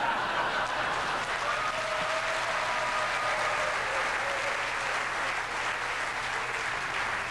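Theatre audience applauding steadily, mixed with laughter.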